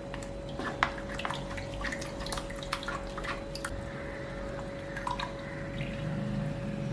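Blended banana stem paste and its cooking liquid splashing and dripping as they are mixed together: a string of irregular small drips and clicks over a faint steady hum.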